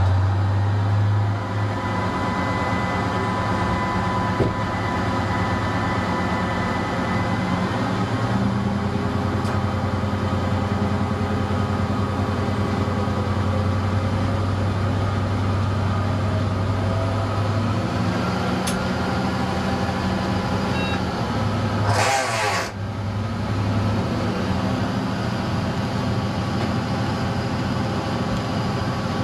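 Class 854 diesel railcar heard from its driving cab, its engine running steadily at speed with the note shifting a couple of times. About three-quarters of the way through comes a brief loud hiss lasting under a second.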